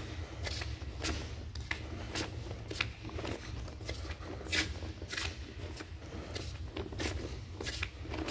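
Footsteps on the floor of a drain tunnel at a steady walking pace, about two a second, each a short sharp scuff, over a steady low rumble.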